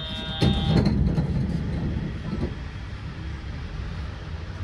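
Train noise at a station platform: a steady electronic tone stops just under a second in as a loud low rumble swells, then eases into a steady running hum.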